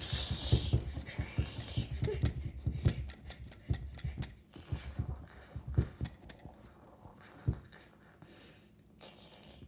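Irregular thumping and rattling as a tabletop and the toys on it are shaken to stage an earthquake. The knocks come thick and fast at first and thin out, with one sharper knock about three-quarters of the way through.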